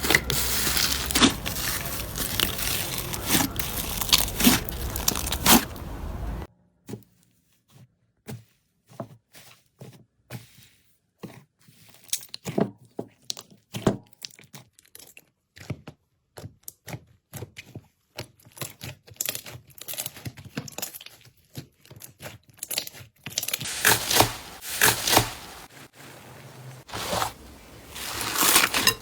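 Slime being squeezed and worked by hand, making crinkly, crackling clicks and pops. The crackling is dense for the first several seconds, breaks off abruptly into sparse single pops, and turns dense again near the end.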